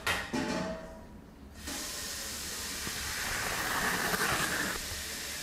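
A very sharp Japanese chef's knife (Sakai Takayuki Aogami Super gyuto) slicing through a sheet of corrosion-inhibitor wrapping paper in one long, steady hissing cut, starting about one and a half seconds in. The cut is a test of the blade's out-of-the-box sharpness.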